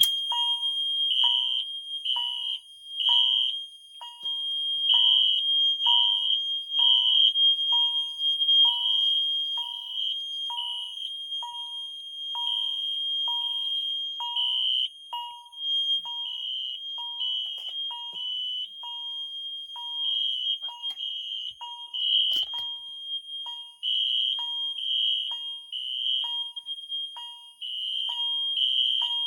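Fire alarm test panel in alarm with three devices sounding together. A Wheelock MIZ-24 LSM mini horn sounds a steady continuous tone, a Siemens horn pulses in the code-three temporal pattern, and a Cerberus Pyrotronics chime repeats evenly about twice a second. Loud.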